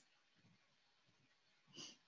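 Near silence: faint room tone on a video call, with one brief, faint sound near the end.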